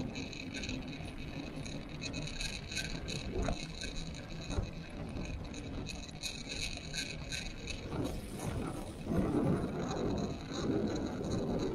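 Fat bike rolling along a wet tarmac path: steady tyre and wind rumble with frequent light clicks and rattles from the bike, growing louder about eight seconds in.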